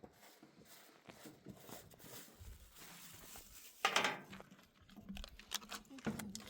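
Small handling and rustling noises close by, with a short, louder rushing burst about four seconds in.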